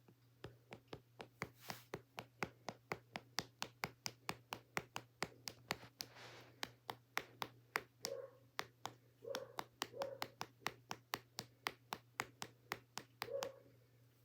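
A rapid, even series of sharp clicks, roughly four a second, coming from a person's feet, with a few soft dull knocks among them in the second half.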